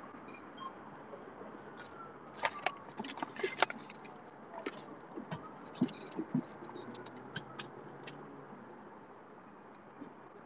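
Paper rustling with small clicks and taps as things are handled, in bursts from about two to eight seconds in, over a faint steady background noise.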